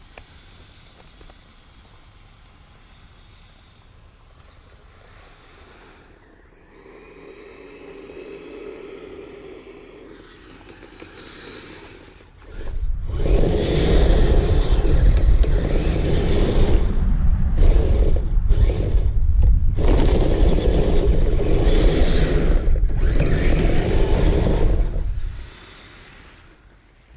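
Kyosho Blizzard RC snow vehicle running through snow. A faint motor whine comes first, then about halfway through a loud rushing, scraping noise of the tracks churning snow, cut by several brief gaps where the throttle eases off, before it drops away again.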